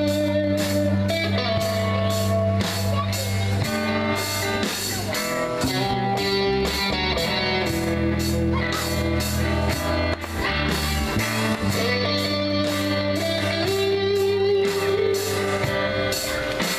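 Live rock band jamming: electric guitars over a sustained bass guitar line, with a drum kit keeping a steady beat.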